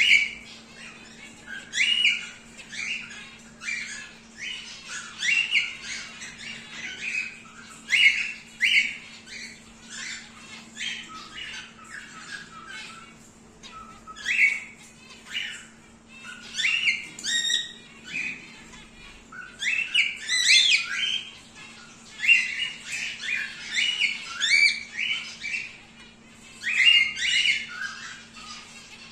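A pair of wild-type grey cockatiels calling, a run of short chirps and squawks in irregular clusters, with a faint steady hum underneath.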